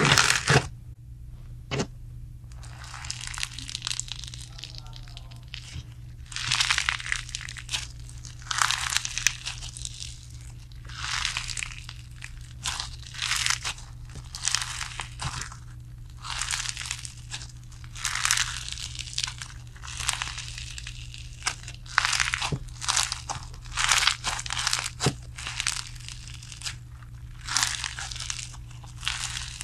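White sequin-glitter slime squeezed and stretched by hand, giving off crackling, crunchy bursts about every second or two as it is worked.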